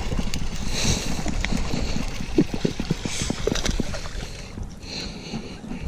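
Baitcasting reel being cranked quickly as a hooked bass is reeled in, with a run of rapid ticks from the reel about halfway through.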